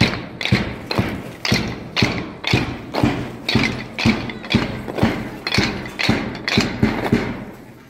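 Wooden drill dumbbells clacked together in a steady rhythm, about two sharp strikes a second, fading a little near the end.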